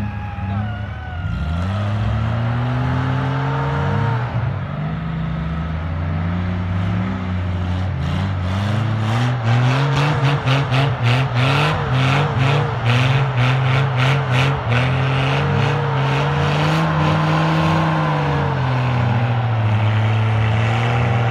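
Off-road 4x4 engines revving up and down under load as one vehicle tows another through deep snow, with a fast rhythmic clatter through the middle.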